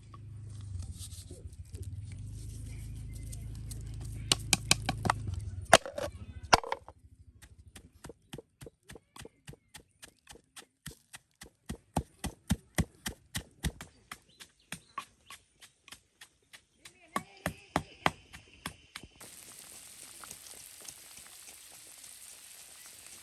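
A knife chopping on a wooden board in quick, regular strokes, about three a second, after a few seconds of low hum with scattered knocks. Near the end a steady sizzling hiss sets in.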